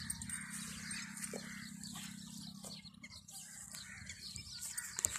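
Quiet outdoor ambience: a steady low hum with a few faint bird chirps.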